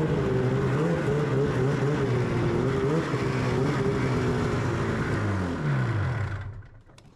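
Two-stroke snowmobile engine running with a slightly wavering pitch, then winding down and shutting off about six seconds in.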